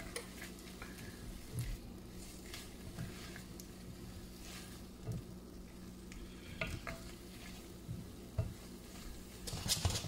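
A utensil stirring and tossing carrots in a stainless steel pot, with scattered scrapes and knocks against the metal and a louder run of knocks near the end. Underneath is a faint sizzle of the nearly dry sugar glaze in the hot pan, on the verge of caramelizing.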